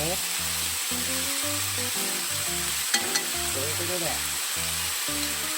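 Chicken breast, ginger, garlic and daikon leaves sizzling steadily as they fry in sesame oil in a frying pan, with two sharp clicks about three seconds in.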